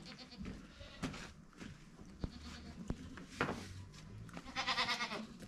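Goat or sheep bleating: a shorter call about three and a half seconds in, then a louder, quavering bleat near the end. A couple of light clicks come before them.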